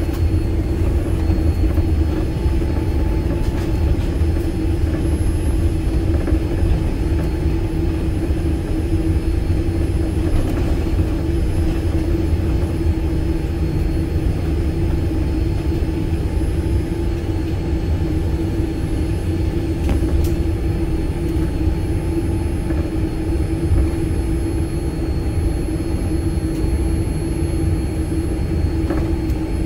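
Boeing 787 airliner cabin noise: the steady low rumble of the jet engines and airflow heard from inside the cabin, with a constant hum above it.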